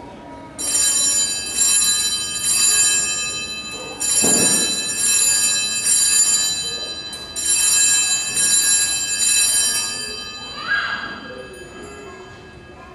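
Altar bells rung at the elevation of the chalice at the consecration: three peals of repeated shaken strokes, the last dying away about ten seconds in.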